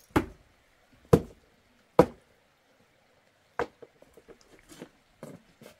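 Three heavy chopping blows about a second apart, followed by a few lighter knocks and taps.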